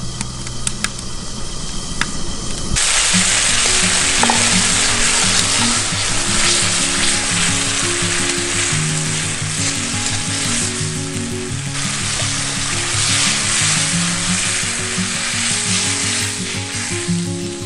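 Food frying in hot oil in a pan: a loud, steady sizzle that starts abruptly about three seconds in, over background music.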